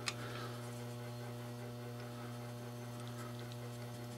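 Steady electrical mains hum with its overtones, and one faint click just after the start.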